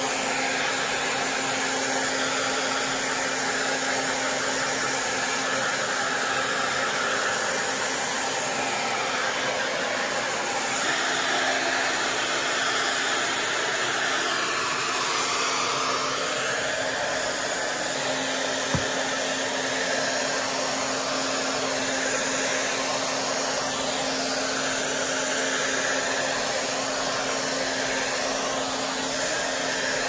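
Wavytalk ionic hair dryer running continuously on very high heat, blowing through wet hair: an even rush of air over a steady motor hum. One small click a little past the middle.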